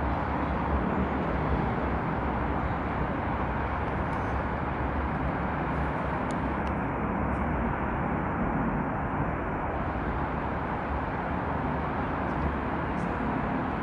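Steady rumble of distant city traffic, an even wash of noise with no single vehicle standing out.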